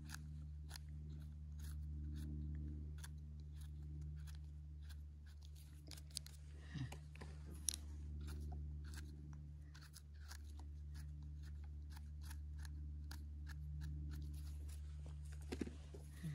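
Plump stems of wild phueng mushrooms being cut: a run of short, crisp crunches and clicks, irregular and repeated throughout, over a steady low hum.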